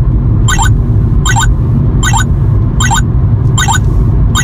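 Cheap Chinese 2-in-1 dashcam/radar-detector combo beeping its alert over and over, a short stepped multi-tone beep about every three-quarters of a second, over the steady road rumble inside a moving car. The owner says it beeps at everything and never stops, camera or no camera: constant false alarms.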